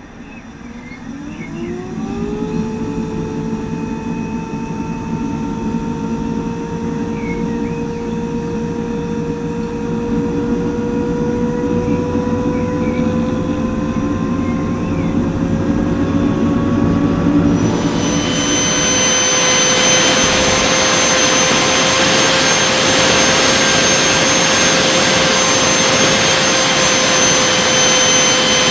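Handmade stainless-steel turbojet starting. Its whine rises quickly as it is spun up, then climbs slowly over a low rumble. About two-thirds of the way in, a loud rushing jet noise comes in suddenly, and the engine runs on steadily with a high whine.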